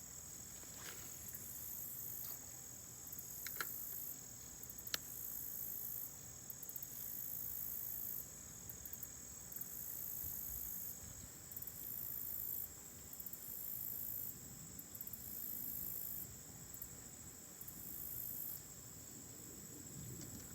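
Insects chirring: one steady, high trill throughout, with a higher buzzing that switches on and off every second or two. A few faint clicks come in the first five seconds.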